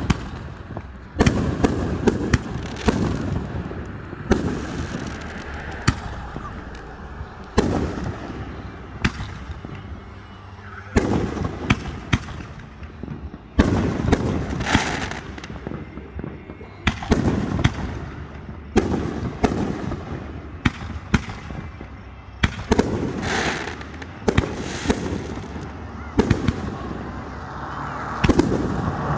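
Aerial fireworks shells bursting one after another, a sharp boom every second or two with rumbling echoes, some followed by crackling.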